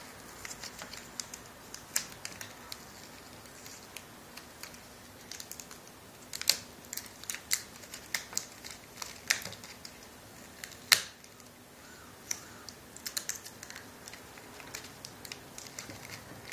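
Irregular small clicks, taps and light scratching as the display cable and its tape are worked loose from a laptop LCD screen, with a few sharper clicks, the loudest about eleven seconds in.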